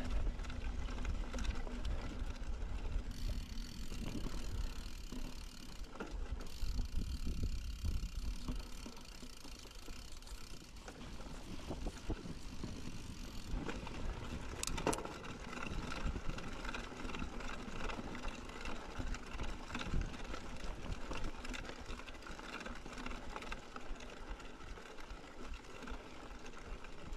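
Mountain bike being ridden over rough ground: tyres rolling with scattered rattles and knocks from the bike over a steady low rumble.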